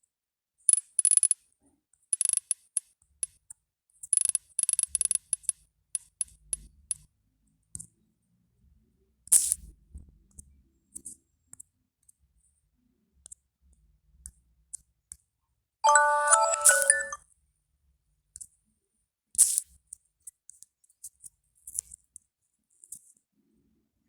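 Short Samsung Galaxy A01 alert tones played one after another with silent gaps between them: clusters of high-pitched repeated chimes in the first seven seconds, a few sharp single clicks, and a brief melodic jingle of several stepping notes about sixteen seconds in.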